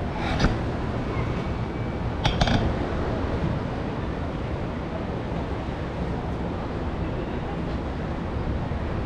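Steady outdoor background noise high above a beachfront street: wind on the microphone over the distant hum of traffic. A couple of light clicks come about half a second in and again about two and a half seconds in.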